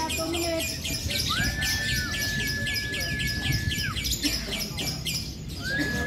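Lovebirds chattering in a fast, unbroken run of high chirps, about six a second: the long chattering song judged at lovebird contests. A steady high whistle-like tone is held for about two and a half seconds and starts again near the end.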